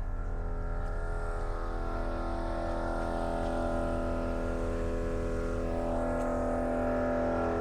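MORRflate portable electric air compressor running steadily while it inflates the tires, a continuous low hum with a steady pitched drone above it.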